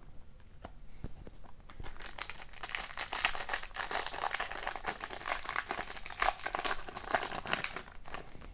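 Foil wrapper of a 2020-21 O-Pee-Chee Platinum hockey card pack being torn open and crumpled by hand: a dense crinkling from about two seconds in until near the end. Before it come a few light clicks of cards being handled.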